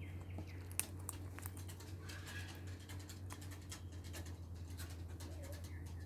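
Parrot eating: a run of small, irregular clicks and scratches from its beak working at food, over a steady low hum.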